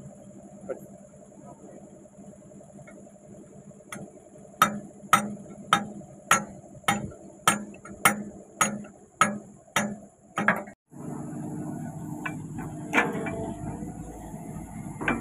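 Hammer blows on the steel pin of an excavator bucket linkage: about eleven regular strikes, a little under two a second, each ringing briefly, over the excavator's idling engine. Near the end the engine is louder, with a couple of metal knocks.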